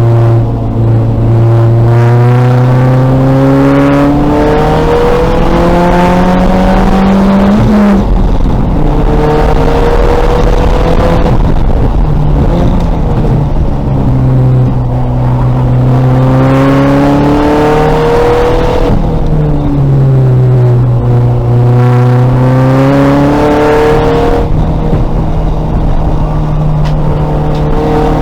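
2000 VW Golf race car's engine under hard acceleration, its pitch climbing through the revs with a sharp drop at an upshift about 8 seconds in. The revs fall away twice under braking and downshifts, then climb again on the next straight.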